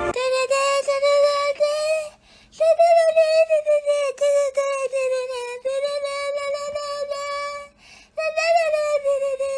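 A high, drawn-out voice-like cry holding a fairly steady, slightly wavering pitch, in three long stretches with short breaks between them.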